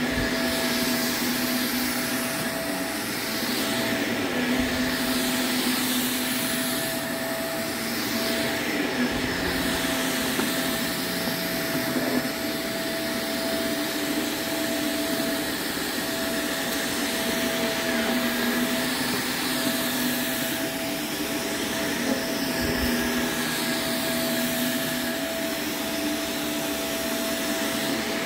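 Shark upright vacuum cleaner running steadily while it is pushed over a shag rug: a constant motor whine over airflow noise, with the lower hum shifting slightly every few seconds.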